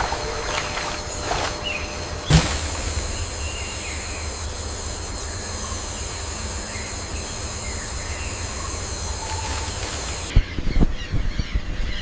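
Rainforest ambience: a steady high-pitched insect-like drone over a low rumble, with one sharp knock about two seconds in. The drone cuts off about ten seconds in and gives way to short, sharp bird squawks.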